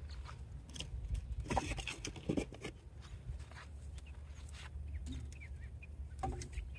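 Split firewood knocking and scraping as it is moved around in the firebox of a trailer-mounted barrel smoker, with a cluster of knocks about a second and a half to two and a half seconds in and another near the end, over a steady low rumble.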